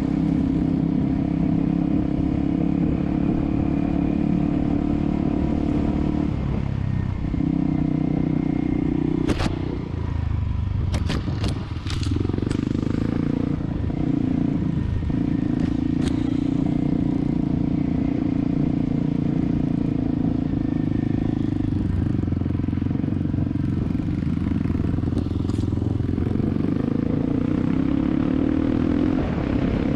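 Motorcycle engine running at steady revs, easing off briefly about seven seconds in and again for a few seconds near the middle before settling back. A few sharp knocks and clatter come about halfway through.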